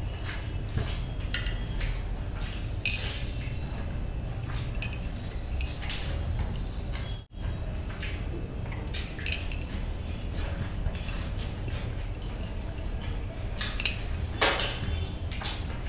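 Close-up eating sounds of a person chewing and biting a grilled chicken drumstick held in the hand: wet mouth clicks and smacks with occasional clinks against glass serving trays, over a steady low hum. A few louder bites or clacks stand out, one about three seconds in, one about nine seconds in and a cluster near the end, and the sound drops out briefly about halfway.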